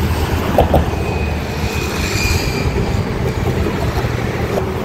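Wind buffeting the microphone over a steady rumble of road traffic passing on the bridge.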